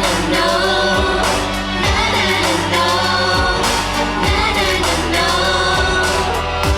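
Upbeat Thai pop song played loud over a concert sound system, with several voices singing together over a steady, deep kick-drum beat.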